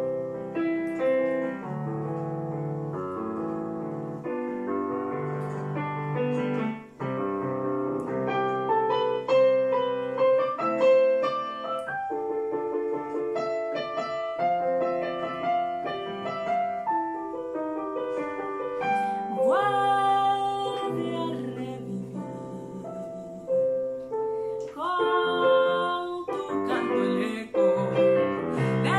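Digital piano playing an instrumental passage in Colombian Andean style, chords under a melody, with quick rising runs of notes twice in the second half.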